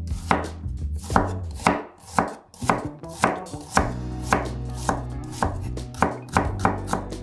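Chef's knife thin-slicing a red onion on a wooden cutting board: a steady run of sharp knife strokes through the onion onto the board, about two a second.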